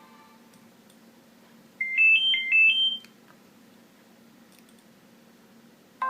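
Nokia 6230i alert tone: a short electronic melody of clean beeping notes, a quick three-note run rising in pitch played twice in a row, lasting about a second and starting about two seconds in.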